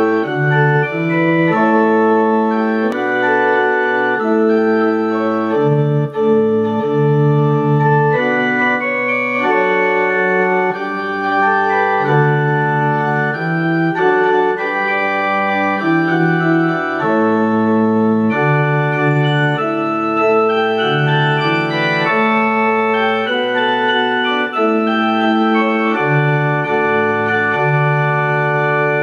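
Organ music: a slow piece of held chords that change roughly every second, at a steady volume.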